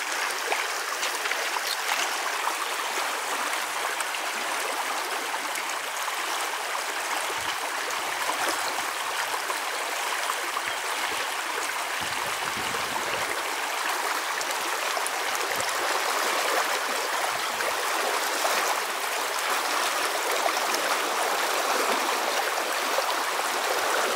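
A small, shallow creek running over rocks and gravel, a steady rush of water.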